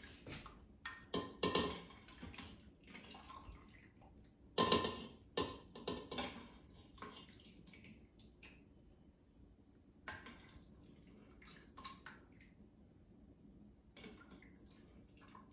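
A slotted spoon scraping and clinking in the stainless-steel inner pot of an Instant Pot, with wet splashes and drips as cooked chicken gizzards are scooped out of the cooking liquid. It comes in short irregular bursts with quiet gaps, the loudest about five seconds in.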